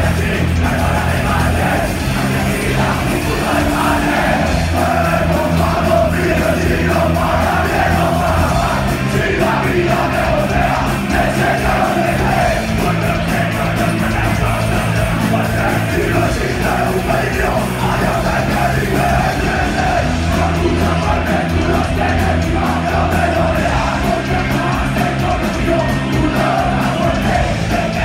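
Live punk rock band playing loud, with distorted electric guitars, bass and drums, and vocals shouted into the microphone.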